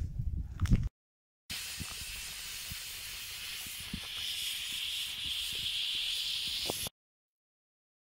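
A second of low wind rumble on the microphone, then a wood cooking fire hissing and sizzling with scattered sharp crackles. The hiss grows a little louder about halfway, then cuts off abruptly.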